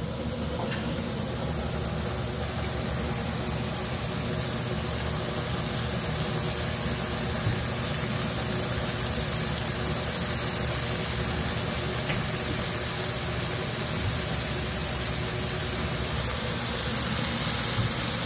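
Frozen thin-sliced shabu-shabu beef sizzling in a hot nonstick frying pan: a steady hiss that grows a little louder near the end, over a low steady hum.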